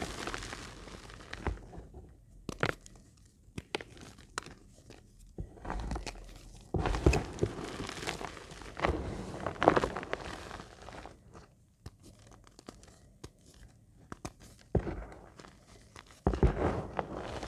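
Crumbles of reformed Magnesia gym chalk crushed in the palms: crunching and crumbling in irregular bursts, with short pauses between handfuls.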